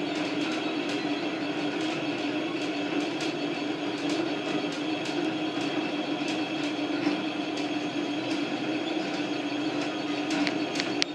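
Leapfrog Creatr 3D printer running, its stepper motors whirring steadily with frequent light ticks as the print head moves while laying down honeycomb PLA infill.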